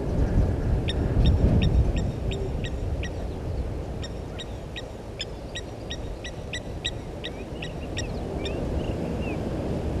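A bird calling a run of short, sharp high notes, about two a second at first and then quicker, ending in a few falling slurred notes. A steady low rumble lies underneath.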